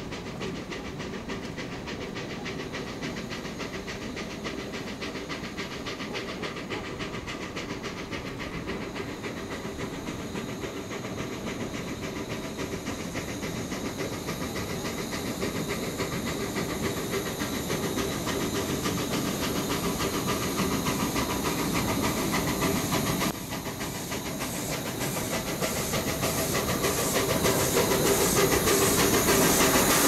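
A 760 mm narrow-gauge steam locomotive running toward the listener with a steady hiss of steam. It grows louder as it comes closer, with a sudden drop in level about three-quarters of the way through before it rises again.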